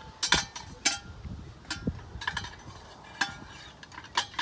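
Metal clinking and light scraping as a straw-holding canister on its long wire handle is drawn up out of the neck of a liquid nitrogen storage tank, the metal knocking against the neck. It comes as a series of sharp, short clinks, roughly one or two a second.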